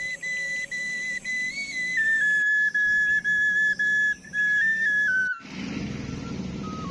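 Background music led by a whistled melody of held notes. The melody stops about five seconds in, giving way to a steady, rushing noise with a faint held tone.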